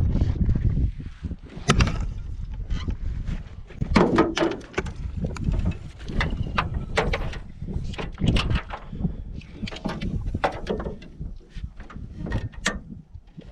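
Wind noise on the microphone in a small fishing boat on a lake, with about seven irregular knocks and clunks of gear or hull.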